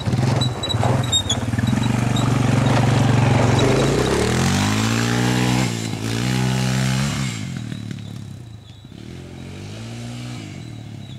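ATV (four-wheeler) engine running hard close by as it climbs a dirt mound, its pitch climbing, dropping and climbing again as it accelerates, then fading as it moves off. A quieter engine rises again near the end.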